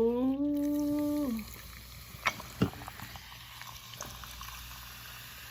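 A long drawn-out 'oh' from a woman's voice, then the steady bubbling of a hot seafood boil in its sauce. A few sharp clicks come at about two and a half and four seconds in.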